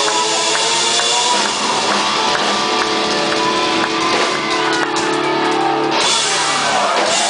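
Live rock band playing: electric guitar with long held, ringing notes over a drum kit, the music changing shortly before the end.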